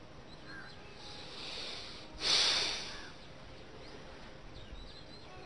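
A man breathing in softly, then letting out one loud, forceful breath lasting under a second, close to the microphone, as he releases a seated yoga twist.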